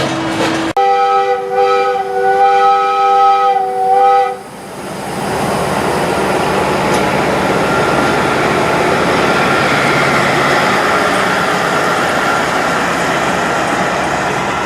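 Steam locomotive whistle blowing one long blast of several tones sounding together as a chord, lasting about three and a half seconds from just under a second in. A steady hiss of escaping steam follows and runs on after the whistle cuts off.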